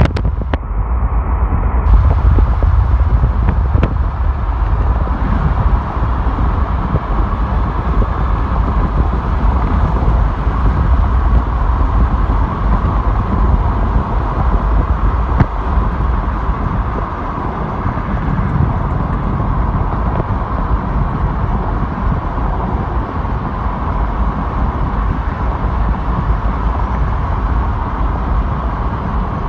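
Car driving along a road: steady road and engine noise with a heavy low rumble.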